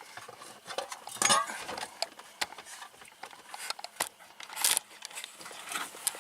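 Light clicks and clinking rattles from hand work on a car's steering column and its plastic trim, with louder clatters about a second in and again near five seconds.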